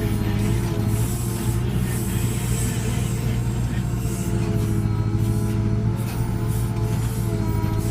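JCB 3CX backhoe loader's diesel engine running steadily under load, with a steady hydraulic whine above the engine hum.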